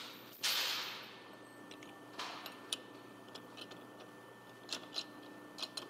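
Four-jaw lathe chuck being tightened onto a piece of tubing with a chuck key: a brief rush of noise just after the start, then scattered light metallic clicks and ticks.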